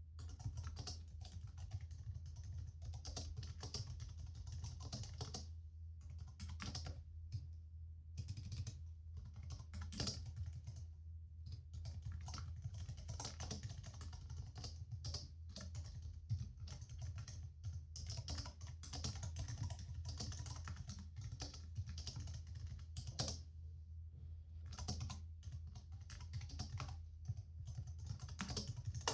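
Steady typing on a computer keyboard: fast runs of key clicks broken by short pauses, over a steady low hum.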